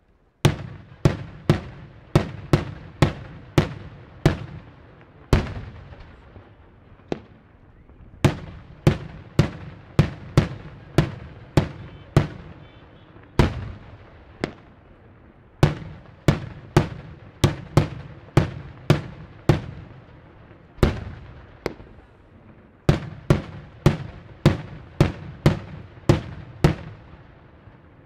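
Daytime fireworks: aerial shells bursting in colored smoke, a rapid run of sharp bangs at about one to two a second, each with a short echoing tail, broken by a couple of brief lulls.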